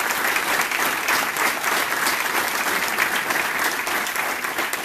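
Applause from a small group of seated people, many hands clapping steadily.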